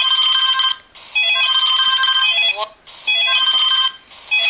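A Saypen talking pen playing an electronic telephone-ring sound through its small speaker: bursts of beeping tones about a second long, repeated four times with short pauses between.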